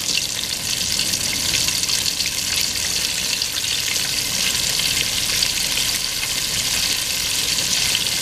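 Flour-coated baby back ribs deep-frying in oil set to 350: a steady sizzle with fine crackle from the bubbling oil.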